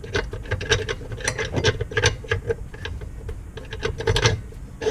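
Rapid, irregular clicking and rattling from handling a pull-down kitchen faucet's spray hose and its clip-on hose weight.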